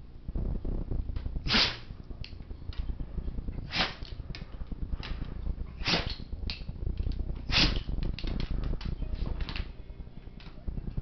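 Black Labrador retriever sneezing repeatedly in a sneezing fit: four sharp sneezes about two seconds apart, with smaller clicks in between.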